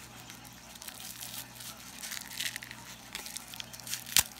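Clear plastic wrapping crinkling and tearing as it is cut and pulled off a nylon watch strap with a pocket knife. A single sharp click sounds about four seconds in.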